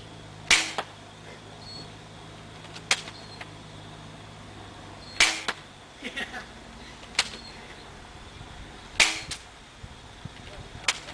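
BB gun firing: sharp single snaps every couple of seconds, about seven in all, three of them louder than the rest.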